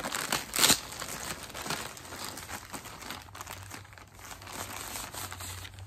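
Plastic mailer bag being torn open and handled, crinkling in an irregular run of crackles, the sharpest about half a second in.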